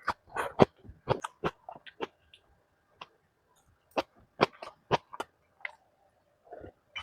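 A person chewing food close to the microphone: irregular crisp clicks and crunches in clusters, with a pause of about a second and a half in the middle.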